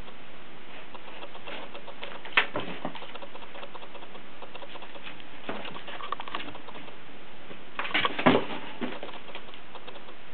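A kitten's paws scrabbling and batting at a cardboard box and a sheet of paper: scattered scratches and taps, with a small cluster of them about eight seconds in, over a steady background hiss.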